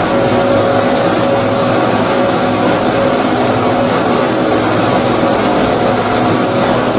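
Steady, unbroken white-noise sleep track for babies: a rumbling hiss weighted toward the low end, with a faint steady hum in it.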